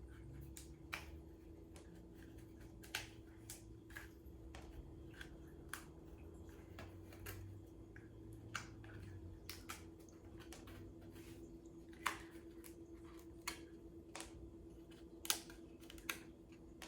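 Scattered light clicks and taps of cardboard pieces being handled and fitted together while a cardboard cat scratcher box is assembled, over a faint steady hum.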